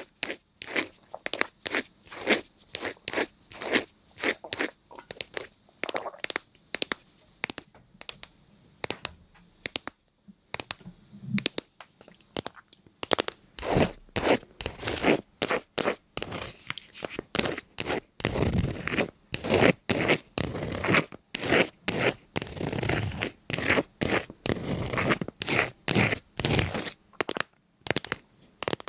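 Repeated crisp crunches and cracks, something brittle being crushed, a few a second at first, growing denser and fuller about halfway through.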